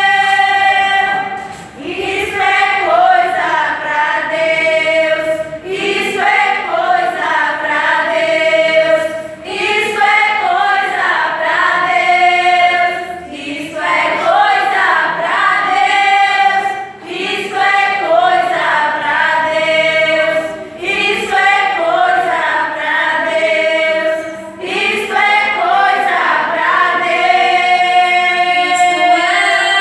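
Gospel praise vocal group singing in harmony, largely a cappella, in phrases a few seconds long with short breaths between them.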